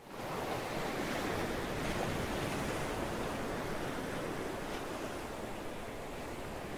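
Ocean surf: waves washing onto the shore in a steady, even rush, fading in from silence at the start.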